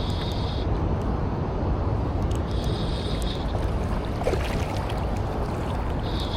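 Steady rushing of river water mixed with wind on the microphone. A short, high-pitched buzz comes twice, at the start and again about two and a half seconds in.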